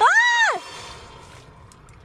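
A single high-pitched squeal, its pitch rising then falling, lasting about half a second at the start.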